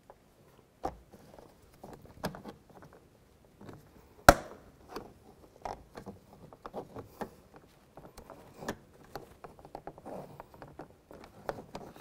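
Plastic door-handle trim on a Nissan Xterra interior door panel being pried loose by hand and trim tool: scattered small clicks and scrapes of plastic, with one sharp snap about four seconds in.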